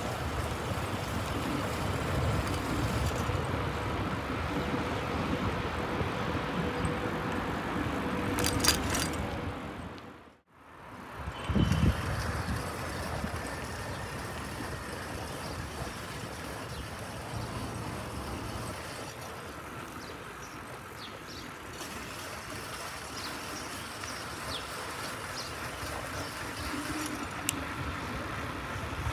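Steady outdoor street noise of distant traffic. It fades almost to nothing about ten seconds in and comes back a little quieter.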